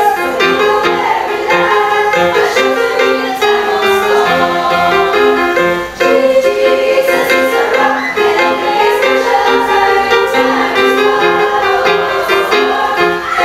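A mixed youth choir singing a gospel medley in several voices over instrumental accompaniment, with a brief dip in the sound about six seconds in.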